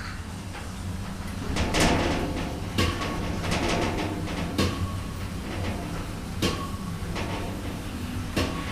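Otis Gen2 lift in operation: a steady low hum with a series of knocks and rattling clatters, typical of the lift doors and car moving.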